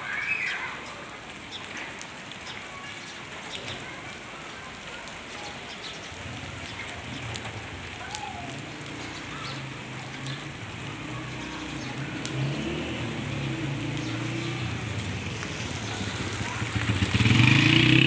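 Rain falling steadily on a wet street, with scattered ticks of drops striking nearby surfaces. From about six seconds in a motorcycle engine approaches, humming louder and louder until it passes close by near the end.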